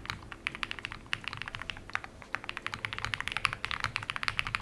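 Custom mechanical keyboard with Tecsee Purple Panda linear switches being typed on in a quick, steady run of keystrokes: a dense patter of short clacks.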